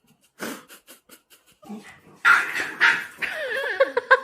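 A dog barks twice, then gives a wavering, whining cry that breaks into a quick run of yips.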